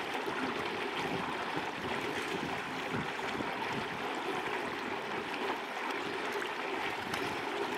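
Fountain water running into a shallow stone basin, a steady even splashing and trickling.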